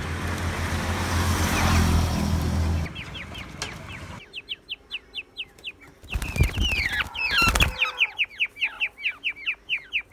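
Quails giving a rapid series of short, falling chirps, several a second, as they are grabbed and held upside down by the feet: distress calls. A burst of wing flapping about six seconds in, and a low hum with rustling for about the first three seconds.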